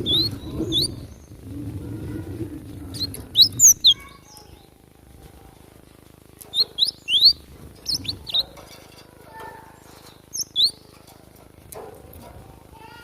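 Cinereous tit (gelatik batu) calling: short, sharp rising chirps in quick clusters of two or three, repeated several times. A low rumble sits under the calls for the first four seconds.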